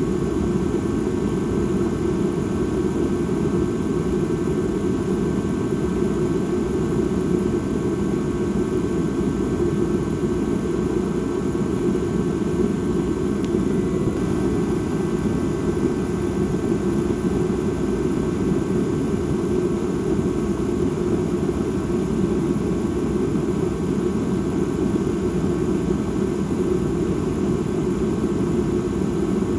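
Dark ambient drone: a steady, low, noisy hum with faint thin high tones held above it, unchanging.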